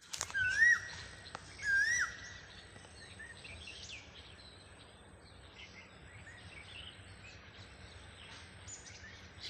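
Birdsong: two loud whistled bird calls about a second apart, each swooping up and then down, followed by softer scattered chirps from several birds over a faint steady hum.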